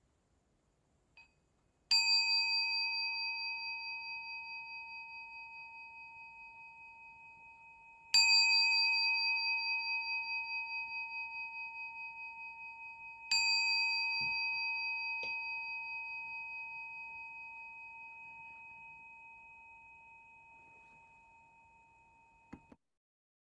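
Singing bowl struck three times, about six and five seconds apart, each stroke ringing out in a few steady pitches that fade slowly with a wavering beat; the three strokes mark the start of a silent meditation. The ringing cuts off suddenly near the end.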